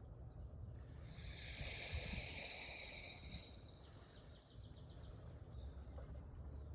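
Faint outdoor ambience: a low steady rumble, with a high buzzing call from about one to three and a half seconds in, then a rapid ticking trill a little later.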